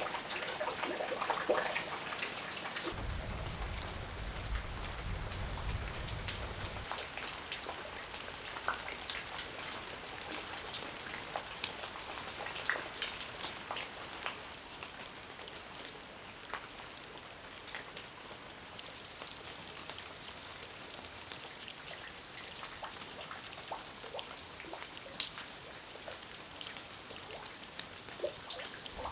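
Rain falling steadily, with many individual drops heard as sharp ticks close by. A low rumble runs for about four seconds, starting about three seconds in.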